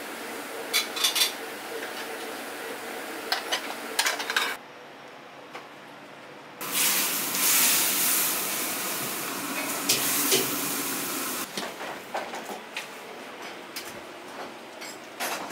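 Restaurant kitchen cooking: metal utensils and pans clink a few times, then a loud steady hiss of hot cooking starts suddenly a little after six seconds in, lasts about five seconds, and stops abruptly, followed by more clinking.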